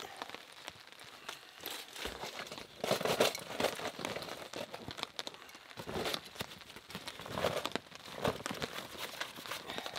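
Crinkling and rustling of camping gear being handled and packed, in irregular bursts.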